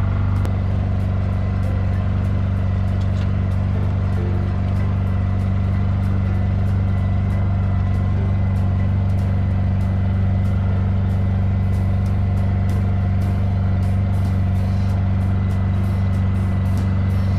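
A small engine running steadily at constant speed, an even low drone that does not change.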